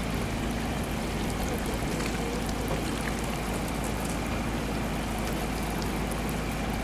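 Outboard motor running steadily on the water, a constant low hum under a wash of water noise.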